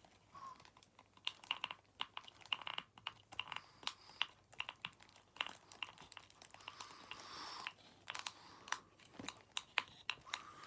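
A hand-held side-action correction tape roller being pressed and drawn across a paper card: a string of sharp small plastic clicks and scratchy rubs, with a longer scratchy stroke about seven seconds in.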